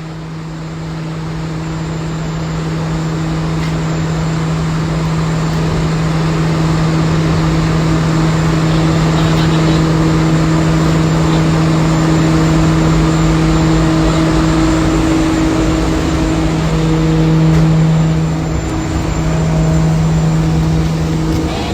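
A ferry's vehicle-ramp machinery running as the ramp is lowered: a loud, steady mechanical hum over a broad rumble, building over the first few seconds and then holding, with a brief dip near the end.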